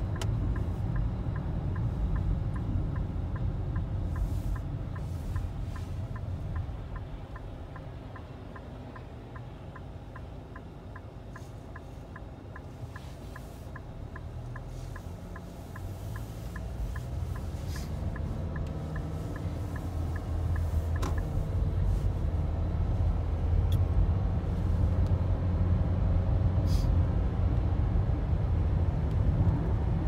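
Car engine and road noise heard from inside the cabin: the rumble drops as the car slows and waits, then builds as it pulls away and picks up speed. A turn-signal indicator ticks at an even pace until about two-thirds of the way through, then stops once the turn is made.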